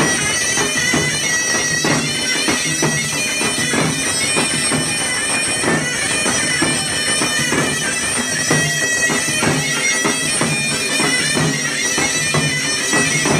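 Tunisian mezoued bagpipe music: a reedy, droning bagpipe melody played over a steady beat of hand drums.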